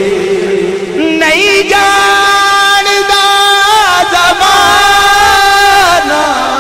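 Male voice singing a Punjabi naat into a microphone, drawing out two long held notes with short turns of pitch between them, then trailing off lower near the end.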